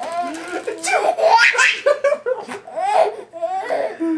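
Baby laughing hysterically in repeated bursts of belly laughter.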